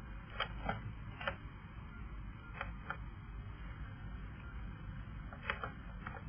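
A handful of short, sharp clicks at irregular intervals, two or three close together early on and again near the end, over a steady low hiss and hum.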